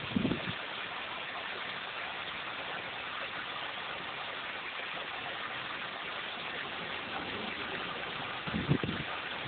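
A spring of water gushing, a steady rush of water, with brief low thumps at the very start and again near the end.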